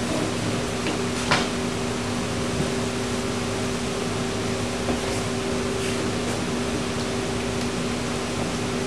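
Steady hum of a kitchen ventilation fan with two held low tones, under a wooden spoon stirring stew in a metal saucepan, which gives a light knock about a second and a half in.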